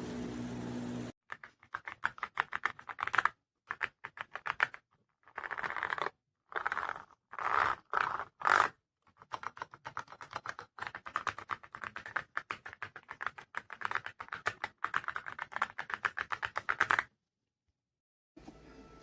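Typing on a YUNZII X98 mechanical keyboard with pre-lubricated switches: fast runs of clicky-clacky keystrokes in bursts, separated by short silent gaps, stopping shortly before the end.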